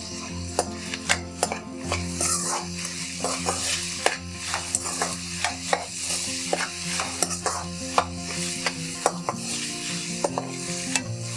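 Sliced onions and chillies sizzling in hot oil in an aluminium kadai, stirred with a steel spoon that scrapes and clicks against the pan again and again.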